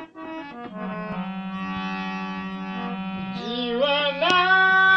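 An elderly man singing over a steady held drone; his voice comes in with wavering, sliding notes about three and a half seconds in and grows louder.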